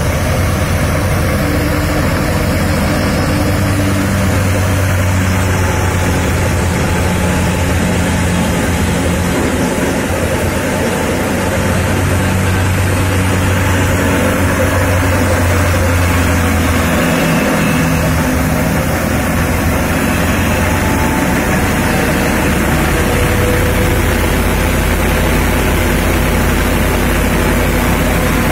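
Mobile multi-crop thresher running while threshing pigeon pea (tur) plants: a loud, steady mechanical drone with a low hum that dips briefly about two-thirds of the way in.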